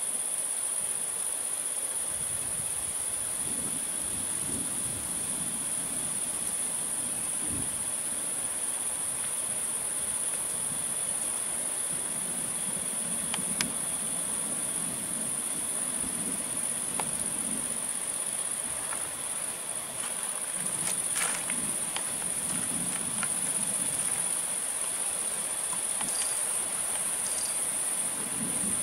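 Crickets chirring steadily in the night, a continuous high-pitched trill with no breaks. Underneath, low rumbling comes and goes, with a few faint clicks.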